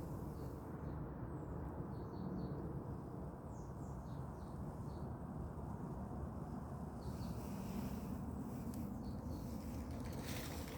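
Outdoor forest ambience: a steady low rumble, with short, faint bird chirps scattered throughout.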